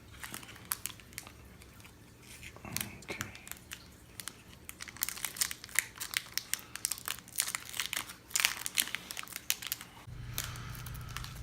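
A sealed packet of Kodak Zink photo paper being torn open and handled: irregular crinkling and crackling of the wrapper, busiest in the middle.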